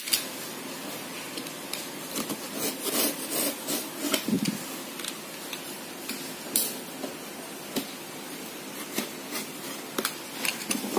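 Box cutter cutting the packing tape on a cardboard box: scattered scraping, rasping and tapping sounds with short clicks, coming and going.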